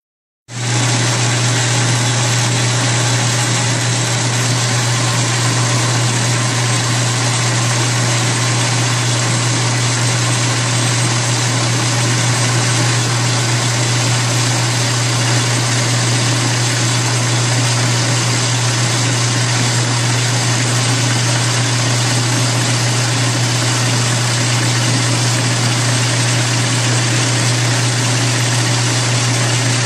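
South Bend 9A metal lathe running steadily under power while turning a metal shaft, chips coming off the tool. It makes a strong low hum with an even whir over it.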